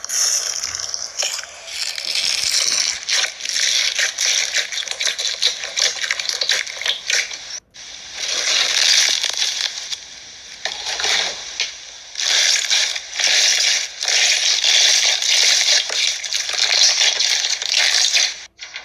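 Slime being squeezed and pressed by hand, a dense run of crackling and popping, with a brief break about eight seconds in.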